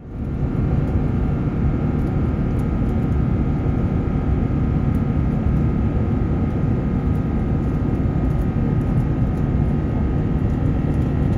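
Airbus A350-900 cabin noise in flight: a steady low rumble of engine and airflow noise with faint high steady whines, fading in at the start.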